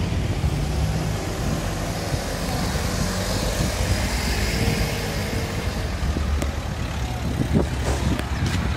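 Outdoor street noise: a steady low rumble with a broad hiss that swells in the middle, and a few light knocks near the end.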